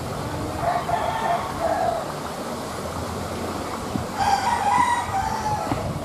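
A rooster crowing twice, the second crow louder and longer, over a steady background hiss.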